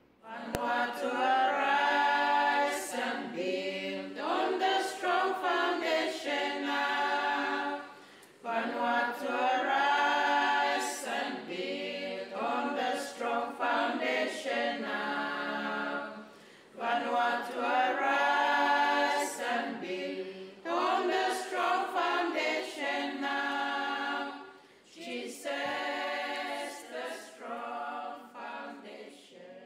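Choir singing in long phrases with short breaks about every eight seconds, fading away near the end.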